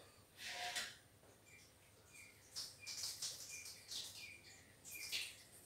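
Faint bird chirping: quick, high chirps in scattered bursts, with a short chirp repeated every half second or so.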